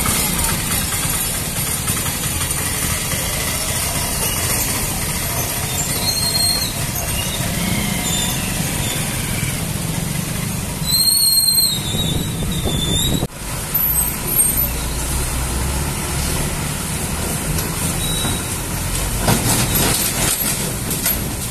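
Heavy lorry engines running slowly in mixed road traffic, with a brief high squeal about eleven seconds in.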